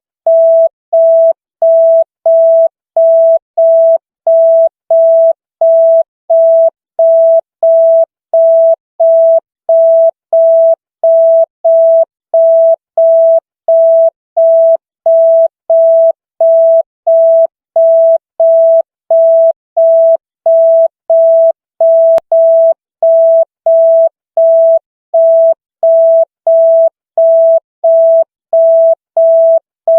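An electronic single-pitch beep of about 650 Hz, switching on and off about one and a half times a second in an even rhythm, like a telephone busy signal. It is offered as the signal tone of the 100 police line.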